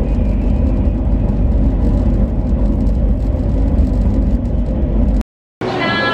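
Steady low rumble of a moving passenger train, heard inside the carriage. It cuts off abruptly about five seconds in and gives way to café noise.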